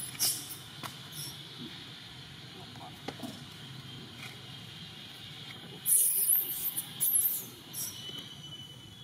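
Long-tailed macaque screaming in two short bursts of shrill, pitch-sliding squeals, about six and seven seconds in, over a steady high background drone.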